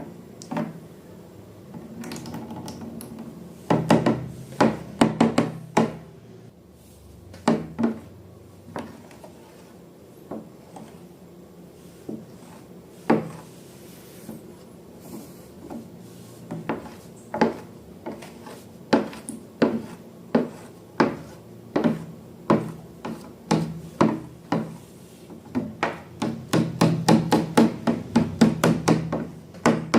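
Slime being mixed and worked by hand: a run of short, sticky clicks and taps with some rubbing, at an uneven pace, coming quicker and denser near the end.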